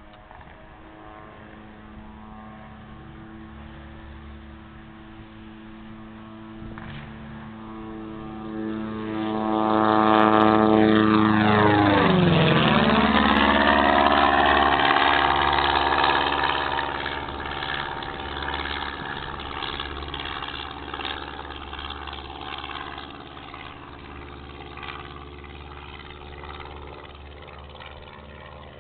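Long-EZ pusher-propeller light aircraft making a low pass: the engine and propeller drone builds up, drops sharply in pitch as the plane goes by about twelve seconds in, then fades away.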